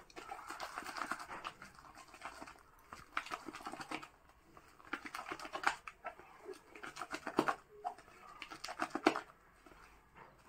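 Silicone spatula stirring and folding whipped cream in a plastic bowl: irregular soft scrapes and clicking taps of the spatula against the bowl.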